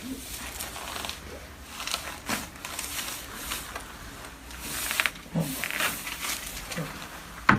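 Clothing rustling and a body shifting on a chiropractic treatment table, with a few short knocks and a couple of brief low vocal sounds. Near the end comes one sharp pop or click, the loudest sound, as the adjustment on the second side is made.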